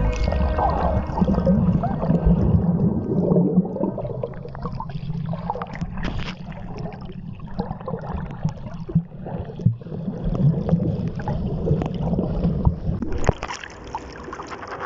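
Muffled underwater sound picked up by a submerged phone microphone in seawater: gurgling bubbles and sloshing water, with scattered knocks and clicks. About thirteen seconds in, the microphone breaks the surface and the sound drops to a quieter, thinner hiss.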